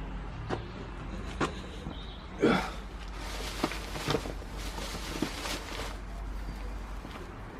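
Scattered knocks and rustling of someone moving about and handling things, the loudest knock about two and a half seconds in, over a low steady hum that stops near the end.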